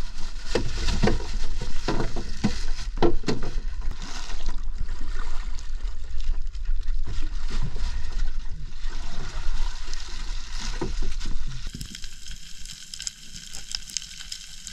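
Plastic shopping bag rustling and crinkling as a large fish is wrapped in it and handled, over a steady low rumble. Near the end it gives way to underwater sound: a steady crackling hiss.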